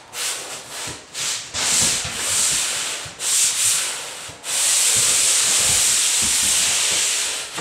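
SmartStick pole-mounted drywall angle sander rubbing sandpaper along a drywall inside corner. It goes in short back-and-forth scraping strokes, then one long steady stroke in the second half.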